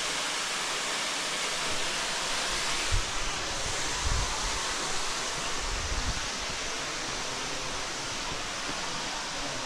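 Steady rush of a waterfall, with a few low bumps on the microphone about three, four and six seconds in.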